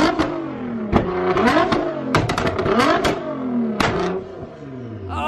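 Nissan GT-R R35's twin-turbo 3.8-litre V6 revved in repeated blips through a Fi Exhaust with its valves open. Each rev rises and falls away, with loud pops and bangs on the overrun, about four sharp bangs in all.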